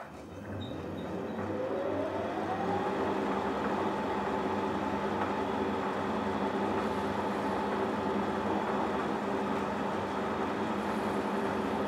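Metal lathe switched on: the motor and spindle spin up with a rising whine over the first two to three seconds, then run at steady speed with a steady hum and whine.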